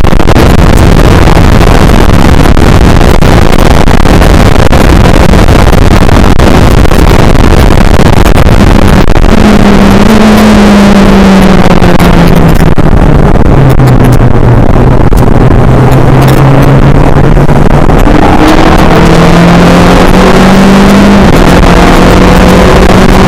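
Skip Barber race car engine heard onboard at speed, very loud, with heavy wind rush. Its pitch holds steady, then about nine seconds in it slowly drops and stays low for a few seconds before climbing back up near the end.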